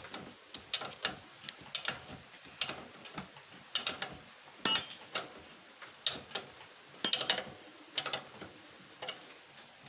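Metal wrench tightening a nut on a motorcycle's rear wheel assembly: sharp metallic clicks and clinks, irregular but about once a second.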